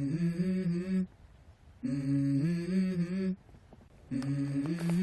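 Background music intro: a wordless hummed vocal melody in short phrases of a few stepping notes, with brief pauses between the phrases.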